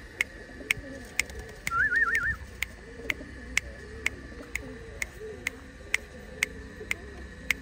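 Domestic pigeons cooing, low coos repeating throughout. A sharp tick sounds about twice a second, and a short warbling whistle comes about two seconds in.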